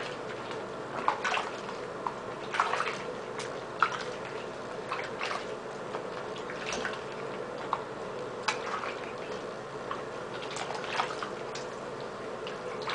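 Water splashing and dripping in a bathroom sink as a soapy puppy is rinsed off by hand, with small irregular splashes throughout.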